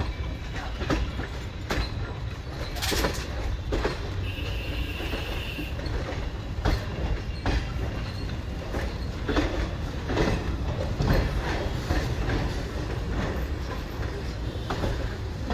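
Indian Railways express passenger coach running, heard from its open door: a steady rumble of the wheels on the track with irregular clacks as they pass over rail joints.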